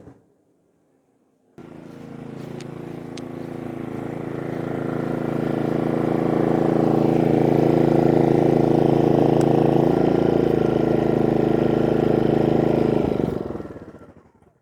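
Genmax GM3500iAED inverter generator's engine running at a steady pitch. It comes in suddenly about a second and a half in, grows louder over the next few seconds, holds, and fades out near the end.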